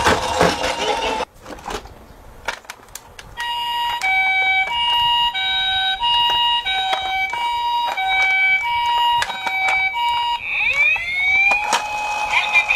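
Electronic sirens of toy Japanese ambulances. A wailing siren tails off about a second in, a few handling clicks follow, then a two-tone hi-lo siren alternates steadily for about seven seconds, and a wailing siren starts rising again near the end.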